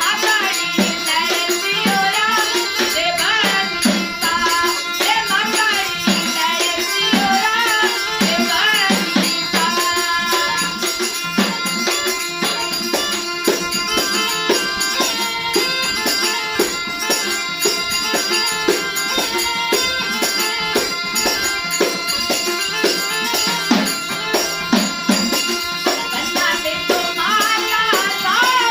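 Rajasthani folk song music: a melody over a steady held drone, with rapid hand-drum strokes and a jingling rattle beating out a quick rhythm. Gliding melodic lines are strongest near the start and again near the end.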